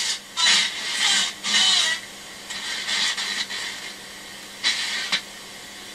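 Nordmende Transita transistor radio being tuned between stations: several short bursts of hiss and static, some with gliding whistles, separated by quieter stretches over a faint steady hum.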